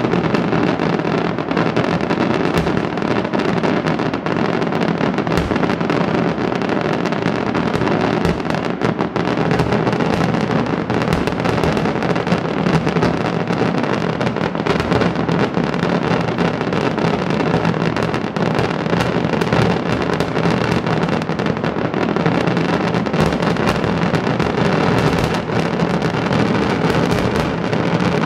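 Daytime fireworks: a dense, unbroken barrage of rapid bangs and crackling from a ground-level battery of firecrackers and small shells.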